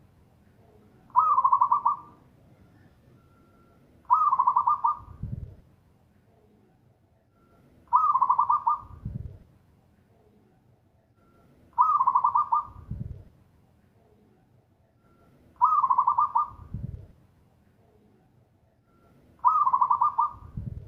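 Zebra dove (perkutut) singing its rapid trilling coo, repeated six times about every four seconds. Each call is a quick run of coos followed by a lower, softer closing note.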